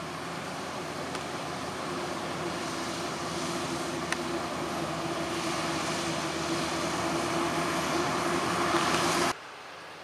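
Krone BiG X 1180 self-propelled forage harvester chopping maize, with a New Holland T7 tractor running alongside. A steady machine drone with a held hum grows louder as the machines come closer. It drops sharply to a quieter machine sound about nine seconds in.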